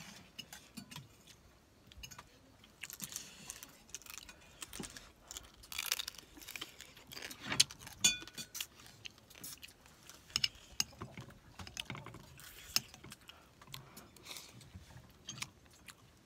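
Chewing and crunching on pieces of field crab shell, with many sharp clicks and a few ringing metal clinks, the loudest about eight seconds in.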